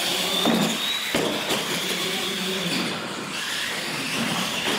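Radio-controlled monster trucks running flat out down a straight concrete track: a steady high motor and gear whine over the noise of the tyres, the whine climbing slightly near the end.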